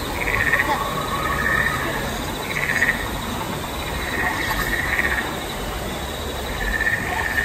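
Short chirping trills repeating about once a second or a little slower, over a steady high buzz and the rush of small waterfalls.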